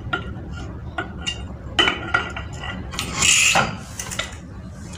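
Metal clinks and knocks from the cast end cover of a monoblock water pump motor being worked down onto the motor body over the rotor shaft, as it is lined up and seated. A longer scraping noise comes about three seconds in.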